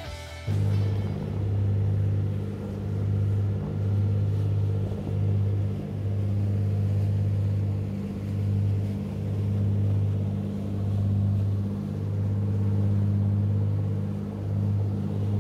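Charter boat's engine running steadily, a low drone that swells and dips slightly in level.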